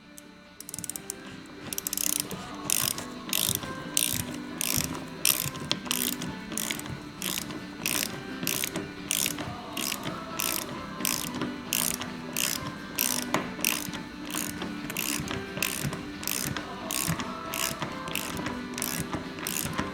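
Ratchet wrench clicking in even strokes, about two clicks a second, as a seat-belt anchor bolt is run in and tightened.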